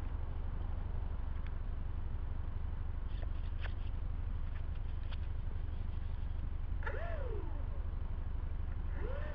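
Wind rumbling on a small camera microphone, over a steady hiss. Near the end, two short whines rise and fall in pitch.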